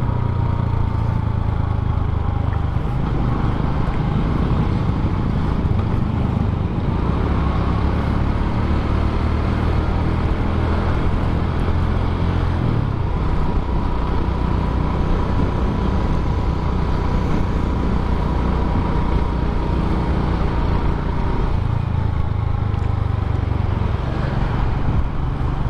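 Suzuki Smash 110 motorcycle's single-cylinder four-stroke engine running at road speed, its note shifting up and down a few times with the throttle, over a steady hiss of wind and traffic.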